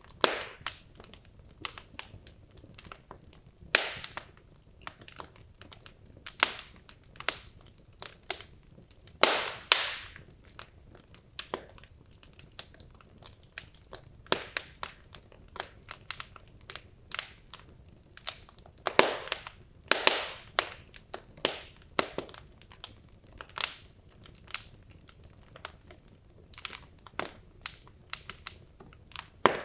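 Wood logs burning in a fireplace, crackling with irregular sharp pops, a few louder bursts of crackle among quieter ticks, over a soft steady hiss of the flames.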